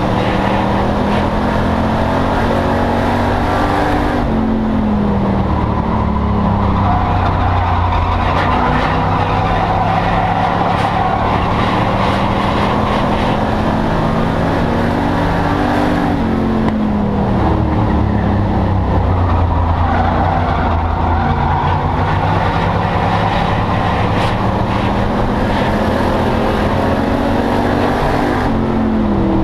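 Enduro race car's engine heard from inside the cabin at racing speed. Its pitch climbs, then drops away three times, about every twelve seconds, before climbing again, over constant road and wind noise.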